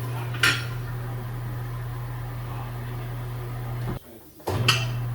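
Tire changer machine running with a steady low hum, with a metallic clank about half a second in. The hum cuts out briefly near the end and starts again with another clank.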